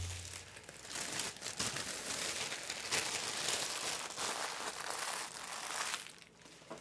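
Plastic packaging wrap crinkling and rustling in irregular crackles as it is handled and pulled away from the keyboard during unboxing. The crinkling stops about six seconds in.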